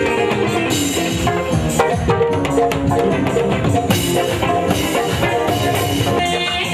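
Live band music: a drum kit with cymbal crashes, twice, and hand drums over bass guitar, with a steady beat.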